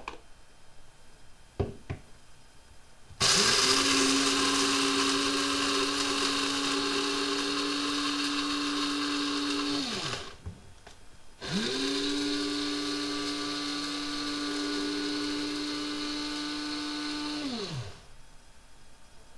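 Electric blade coffee grinder run twice, for about seven seconds and then about six, its motor spinning up at each start and winding down at each stop, after a couple of light clicks.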